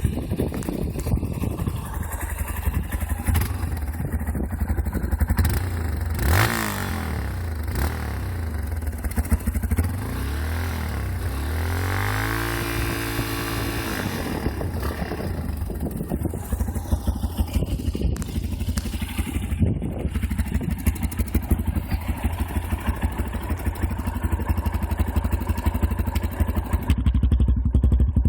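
Yamaha XTZ 250 Lander's single-cylinder four-stroke engine running through a Roncar Coyote 2way aftermarket exhaust: idling with a pulsing beat, blipped sharply about six seconds in, then revved up, held for a couple of seconds near the middle and let fall back to idle.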